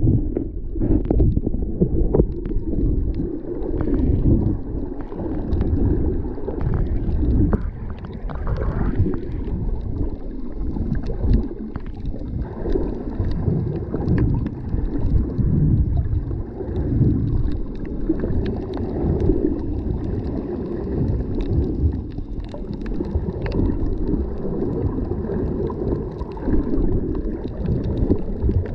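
Muffled underwater rumble and sloshing of shallow water, heard through a camera held just below the surface, swelling and easing every second or two, with scattered faint clicks.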